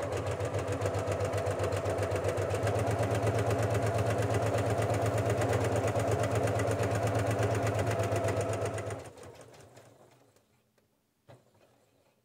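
Janome electric sewing machine with a walking foot, running at a fast, even stitching rhythm, then stopping about nine seconds in.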